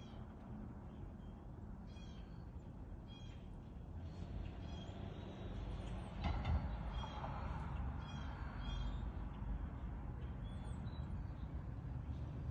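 Short, high-pitched animal calls repeating every second or two over a steady low rumble, with a sharp click about six seconds in.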